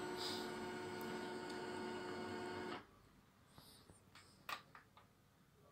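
HP Laser MFP 135a laser printer warming up after being switched on: its motor runs with a steady whine, then stops abruptly a little under three seconds in, followed by a few light clicks.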